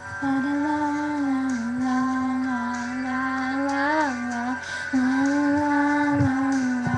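Young female voice singing two long held notes without clear words, the first rising briefly and breaking off about four and a half seconds in, the next starting about half a second later.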